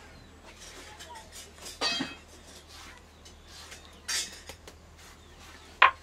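Hand work on a flat stone grinding slab with a round hand stone: a few separate knocks and clinks of stone and a small bowl. The sharpest and loudest knock comes near the end.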